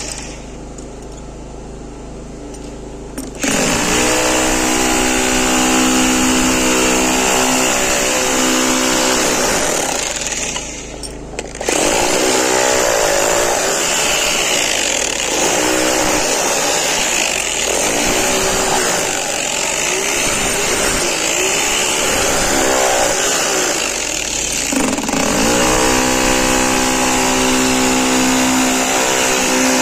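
Electric demolition hammer with a chisel bit hammering at concrete and broken tile rubble. It starts about three seconds in, stops briefly near the middle, then runs on steadily.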